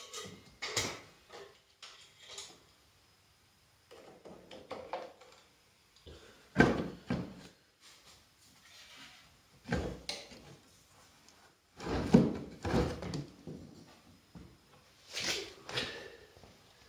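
Scattered metal clunks, knocks and scrapes as a snowmobile's exhaust silencer is worked loose and moved aside from the engine, each a short separate bump or scrape with quiet gaps between.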